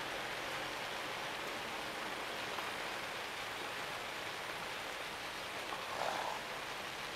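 Steady hiss of rain falling, with a brief louder sound about six seconds in.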